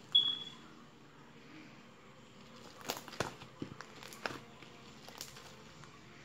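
Purple fluffy slime being poked and kneaded by hand, with sharp pops and clicks of trapped air: one loud pop right at the start, then a scatter of smaller clicks and squelches from about three seconds in.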